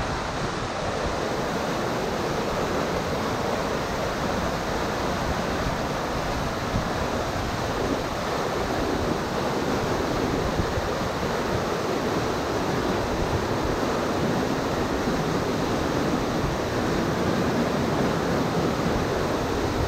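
River whitewater rushing steadily over a rocky drop, a constant full roar of churning rapids.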